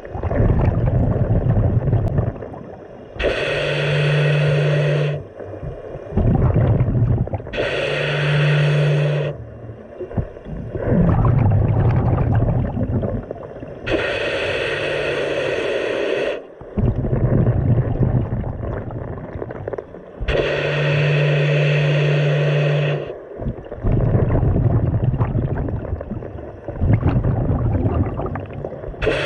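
Scuba diver breathing through a regulator. Each inhalation is a hiss with a steady low hum lasting about two seconds, followed by a longer, louder rumble of exhaled bubbles, in about four breaths.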